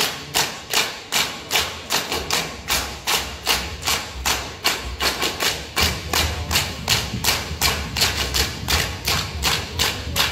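Dancers in a Samoan group dance clapping their hands in unison to a fast, even beat, about two sharp claps a second with softer ones between. A deeper thudding joins about halfway through.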